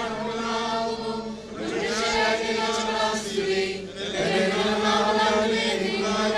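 Large choir singing a slow liturgical chant in long held notes, with new phrases starting about a second and a half in and again around four seconds.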